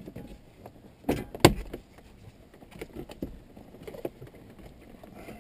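Plastic dash trim around the ignition cylinder of a 3rd-generation Toyota 4Runner being handled and pressed into place with gloved hands. A couple of sharp plastic clicks come about a second and a half in, followed by fainter ticks and rustling as the piece is worked into its tabs.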